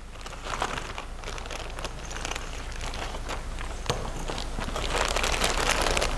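Clear plastic bag crinkling and rustling as gloved hands open it and take out small plastic fittings, growing louder toward the end. A single light click about four seconds in.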